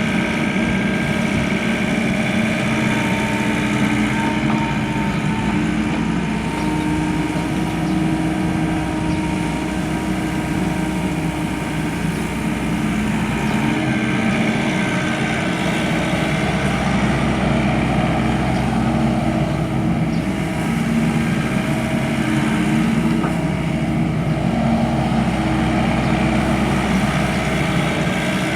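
Volvo EW55 wheeled excavator's diesel engine running steadily, its note shifting a few times as the machine works.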